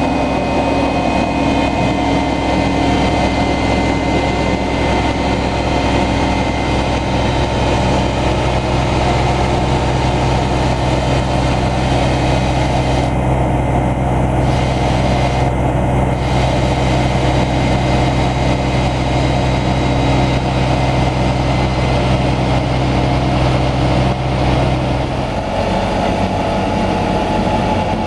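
Large Fendt tractor diesel engines running steadily with a deep, even hum while slurry is transferred between two tankers. Near the end the deep engine tone drops away as the transfer ends and the docking arm is released.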